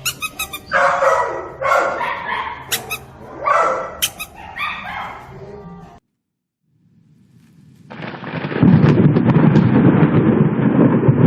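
A dog barking several times in short bursts, then after a brief cut to silence, thunder rumbling loudly and continuously from about eight seconds in.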